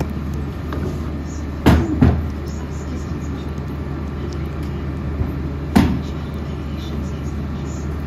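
Mack LEU garbage truck's diesel engine idling steadily while carts are tipped by hand into its steel Curotto carry can: two loud bangs against the can just under two seconds in and another near six seconds.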